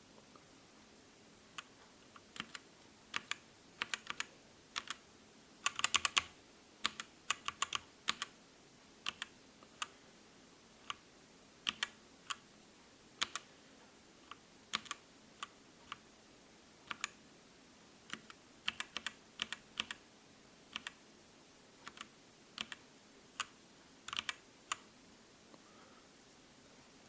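Keystrokes on a MOTOSPEED K87S mechanical keyboard with red linear switches. The presses are scattered and irregular, one or two at a time with a few quick flurries, and fairly quiet.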